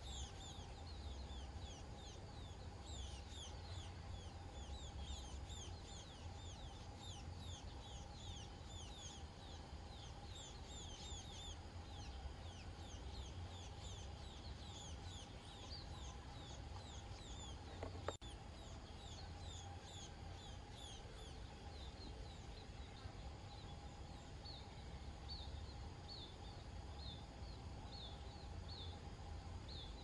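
Scaly-breasted munias calling: rapid, high, thin notes that each slide downward, densest in the first dozen seconds and then thinning to about one a second. These are the juveniles begging while the adult feeds them. A single sharp click sounds about eighteen seconds in.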